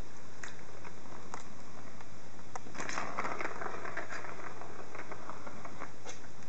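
Kittens pawing and scrabbling at a plastic ball-track cat toy and the cloth mat under it: scattered light clicks, and a short flurry of scratching and rattling about three seconds in.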